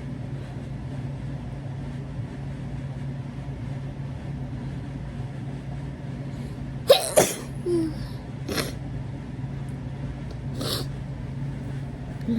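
A person sneezes once, loudly and suddenly, about seven seconds in, followed by two shorter, quieter breathy sounds. A steady low hum runs underneath.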